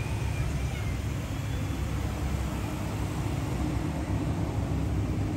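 Steady low rumbling noise with a light hiss over it, even throughout.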